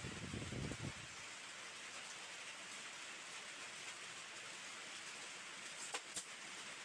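A steady hiss with low rumbling in the first second and two sharp clicks about six seconds in.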